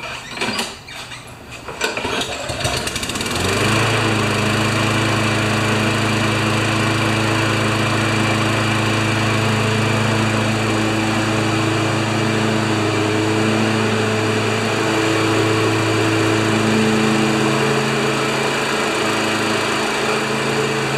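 Craftsman lawn mower's 190cc Briggs & Stratton Quantum single-cylinder engine being pull-started: a few short knocks from the recoil starter, then the engine catches about three seconds in and runs steadily. It is a next-day start test of an engine that had flooded the day before.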